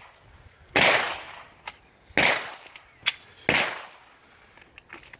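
Pistol shots: three loud reports about a second and a half apart, each trailing off in an echo, with fainter, sharper cracks between them.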